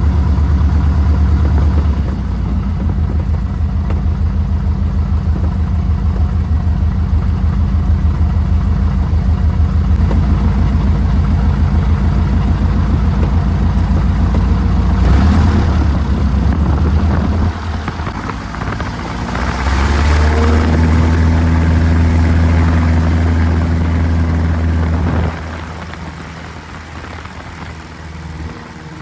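Piper PA-18 Super Cub's piston engine running steadily at high power. It eases off briefly about two-thirds of the way through, comes back up, then is throttled back sharply near the end.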